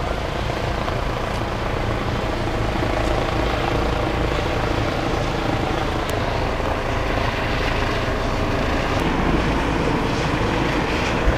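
Helicopter flying overhead, a steady rotor and engine drone. A brief knock near the end.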